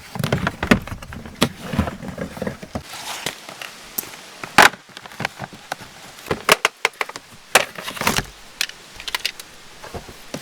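Irregular knocks, clicks and rustling of gear being handled and moved about, with a few sharper knocks about 4.5, 6.5 and 8 seconds in.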